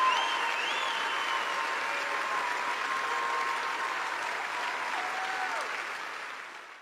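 A large audience applauding in a standing ovation, with a few high held and gliding tones over the clapping. The applause fades out near the end.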